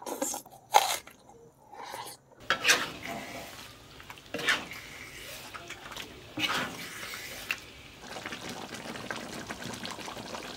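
Squid cooking in thick balado chili sauce in a pan: a wet sizzle with a few sharp knocks or scrapes in the pan. From about eight seconds in, a steady fine bubbling as the sauce simmers. It opens with a couple of brief clicks and smacks of eating.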